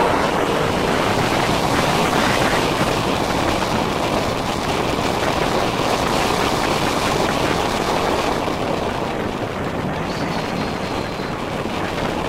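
Roller coaster train running along its steel track: a steady rushing noise of wheels and wind on the microphone, easing off slightly towards the end.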